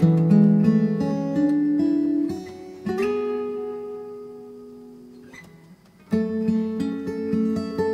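Background music: acoustic guitar playing plucked notes and chords. About three seconds in, one chord rings out and fades away slowly for nearly three seconds before the playing picks up again.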